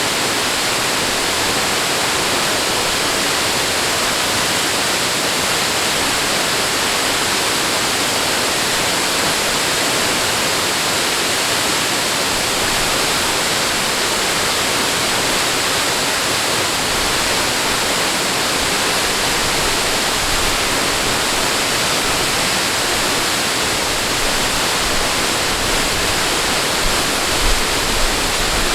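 Steady, unbroken rush of flowing water, with a few soft low thumps near the end.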